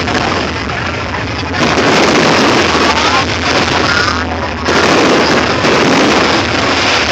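Fireworks display going off as a continuous dense rumble and crackle of bursts, swelling louder about a second and a half in and again past four and a half seconds.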